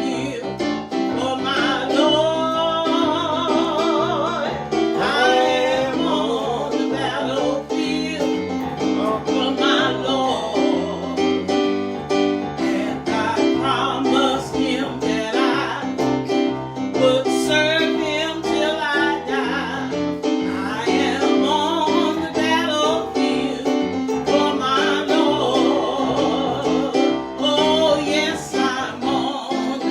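Gospel song: singing with vibrato over a steady instrumental accompaniment.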